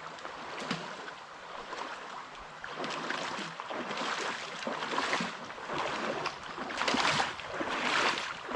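Water splashing and sloshing in uneven surges, as of people wading through a knee-deep creek, growing louder near the end.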